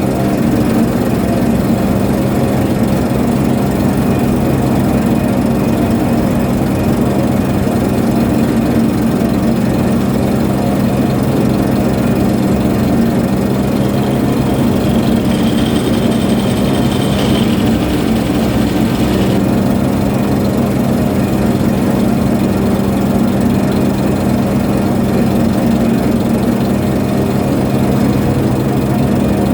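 Ship's engine running steadily with an even, deep hum. A faint high whine joins it briefly about halfway through.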